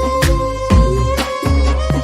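Instrumental passage of a Hindi pop song: a long held lead note, string-like, over a steady drum beat about every three-quarters of a second and a deep bass.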